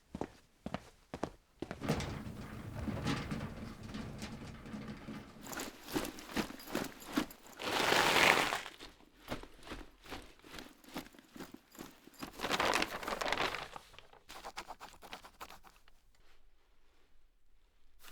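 Studio foley effects: a run of short footstep-like knocks at the start, then a dense rustling, handling texture with two louder noisy swells, about eight and thirteen seconds in, before it thins to a few faint clicks.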